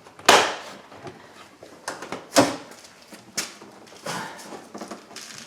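Sharp plastic-and-metal clicks and knocks from a pickup's door handle, trim surround and latch being snapped into place and worked. The loudest comes just after the start, followed by a few more over the next four seconds.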